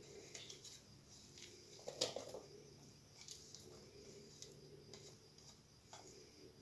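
Faint taps and clicks of fingers and cut fruit against a plate as fruit is pushed off it into a bowl, with one louder knock about two seconds in.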